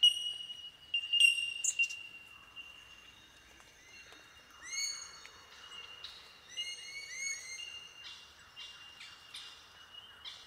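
Chorus of bell miners (bellbirds) giving ringing, bell-like 'tink' calls that blend into a steady high chime. The loudest notes come in the first two seconds, and runs of short rising bird notes come about four and a half and about seven seconds in.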